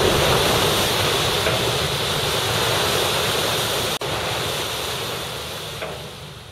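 Water rushing past a moving shrimp cutter with wind on the microphone, a steady rush broken by a brief dropout about four seconds in, then fading down toward the end.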